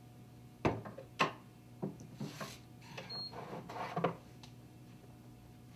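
Sharp knocks and clunks of gear being handled and set down on a wooden locker shelf, the two loudest in the first second or so, followed by rustling and lighter knocks. A steady low hum runs underneath.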